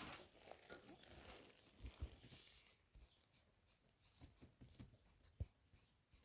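Faint, regular scraping strokes at about three a second, the sound of hand work on material.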